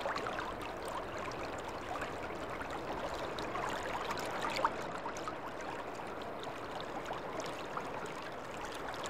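Shallow river water running over and between rocks, a steady babbling with small trickling splashes.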